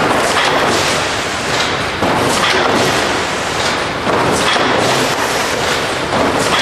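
iPak TF200D tray-forming machine running while it folds cardboard trays. A loud, steady rushing noise is broken by repeated thumps and clatter.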